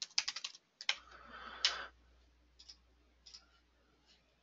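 Computer keyboard typing: a quick run of keystrokes in the first half-second, then a few single clicks spread through the rest.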